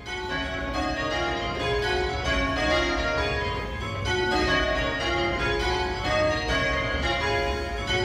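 A light ring of eight church bells, all cast by John Taylor & Co in 1968 with a tenor of about 4 cwt, in change ringing: the bells strike one after another in a quick, even, unbroken sequence.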